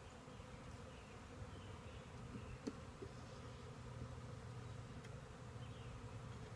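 Honeybees buzzing around an open hive, a faint steady hum, with a couple of light knocks about three seconds in.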